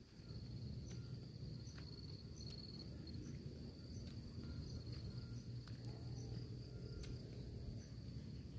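Insects trilling steadily in two high pitches, with a short chirp repeating a little under once a second, over a low rumble.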